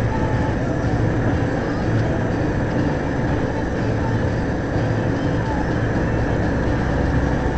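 Steady engine and road noise heard inside the cab of a vehicle cruising on a country road, a constant low rumble with tyre noise and no changes.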